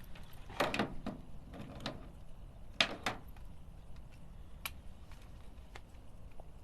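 A few short clunks and clatters from handling catfish for weighing, loudest about three seconds in.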